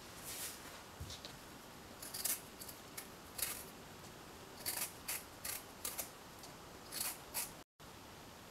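A red-skinned potato being peeled by hand: a quick, irregular series of short scraping strokes of the blade across the skin.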